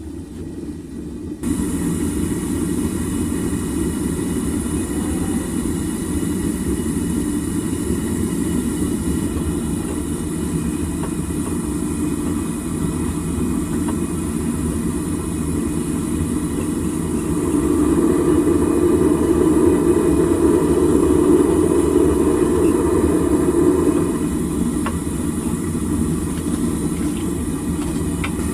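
Home-made propane furnace burner running steadily while melting aluminium. It gets suddenly louder about a second and a half in, and louder again for several seconds about two-thirds of the way through.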